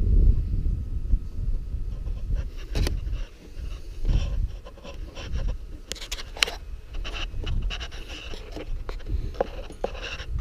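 Wind buffeting the microphone as a low, uneven rumble, with scattered short scrapes and clicks from the camera and controller being handled.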